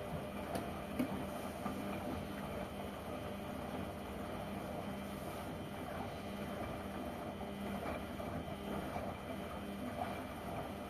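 LG washing machine drum turning during the wash cycle: a steady motor hum over a rough churning noise, with a few light knocks.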